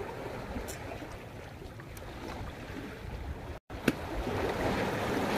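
Sea water washing against breakwater rocks, a steady wash with a low rumble. It drops out for a moment about three and a half seconds in, there is a click, and it comes back louder.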